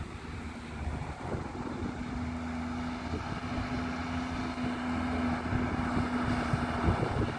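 New Holland TM190 tractor's six-cylinder diesel engine running steadily as the tractor drives along the road, a constant engine drone.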